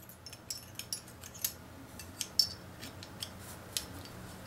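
Light, irregular metallic clicks and taps of steel parts knocking together: a firing pin being slid into a DPMS AR-15 bolt carrier while it is reassembled by hand.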